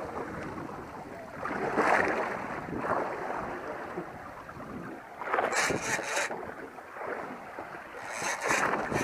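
Sea water slapping against the hull of a drifting boat, with three louder surges about two seconds in, midway and near the end, over steady wind on the microphone.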